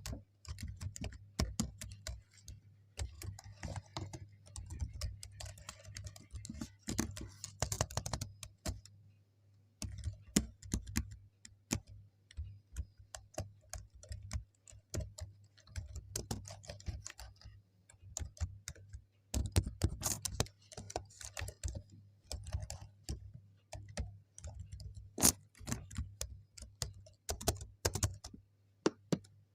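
Typing on a computer keyboard: irregular runs of key clicks with short pauses, over a faint low hum.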